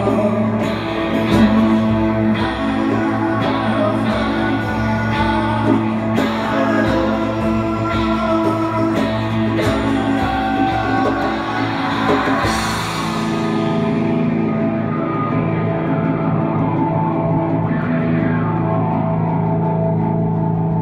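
Live band playing electric and acoustic guitars with held, ringing notes. A beat of regular hits runs for about the first twelve seconds and ends in a crash that rings out, after which the guitars carry on softer with sustained notes.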